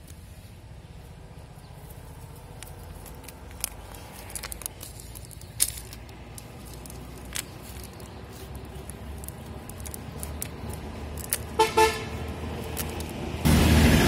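Low rumble of road traffic with a few light clicks, then two short vehicle-horn toots close together near the end, followed by a loud rush of noise.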